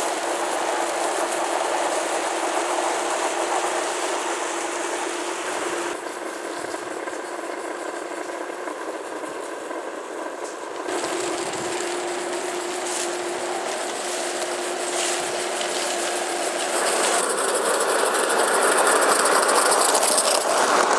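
Gauge 1 live-steam model trains running on garden-railway track: steady wheel rumble and rail clatter with a hiss of steam. The sound changes abruptly several times as the view switches between trains.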